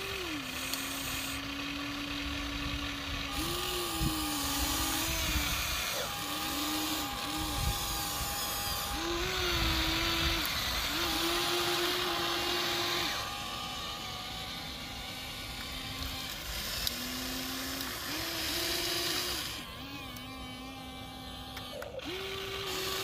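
Electric motors of a Huina remote-control toy excavator whining as it works, the pitch holding for a second or two and then jumping or bending as the boom, arm and bucket start, stop and take load. A hiss of sand being scraped and shifted rises through the middle.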